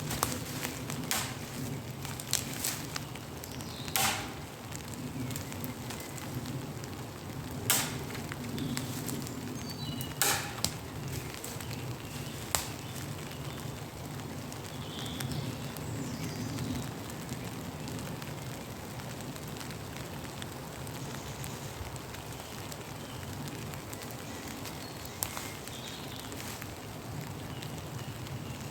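Steady rain falling, with a few sharp cracks or taps standing out, the loudest about 8 and 10 seconds in.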